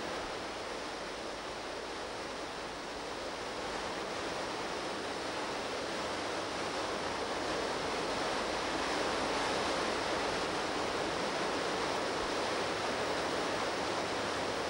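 Whitewater river rushing over rocks in a steady, even roar of rapids, growing slightly louder through the middle.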